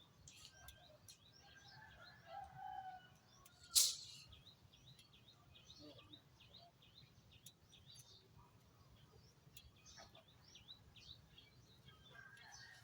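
Small birds chirping, many short chirps throughout, with a longer call a little over two seconds in. A single sharp knock about four seconds in is the loudest sound.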